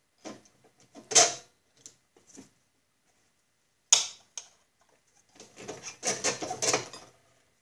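Metal hand tool and parts knocking together on a lawn mower's drive pulley and bracket: a sharp clack about a second in, another near four seconds, a few light ticks between, and a run of light rattling and handling near the end.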